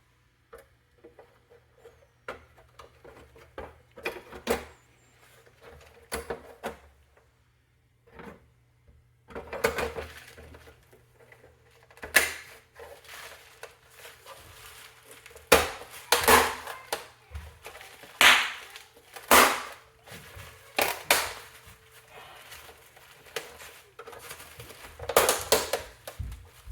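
Irregular clicks, knocks and scrapes of computer hardware being handled, with hard plastic and metal parts set down and fitted together. Several louder knocks come in the second half.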